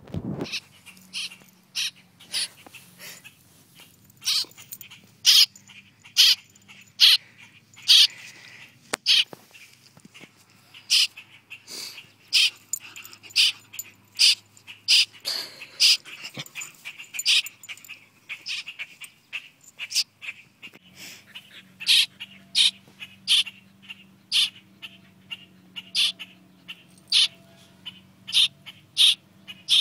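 Small black fledgling bird chirping over and over, short high calls about every half second.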